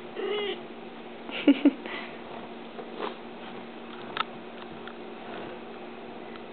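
Kitten playing on a blanket on top of its mother cat: soft scattered taps and rustles, with a short pitched call just after the start and a louder quick double sound about a second and a half in.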